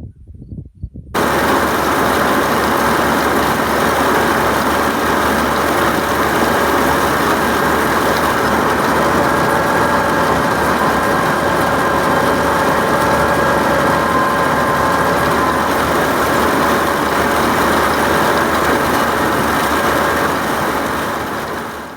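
John Deere 9500 combine running steadily: a loud, even engine and machinery noise with a few held tones. It comes in suddenly about a second in and fades away just before the end.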